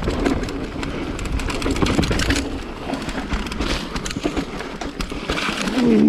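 Mountain bike rolling fast over rough dirt singletrack: tyre noise on dirt and rocks with the bike rattling, and many small knocks and clicks over a steady low rumble.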